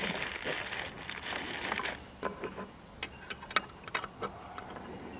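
Paper packaging rustling and crinkling as it is handled in a small cardboard box, stopping about two seconds in. Then a few light, separate clicks and taps as small parts are picked up.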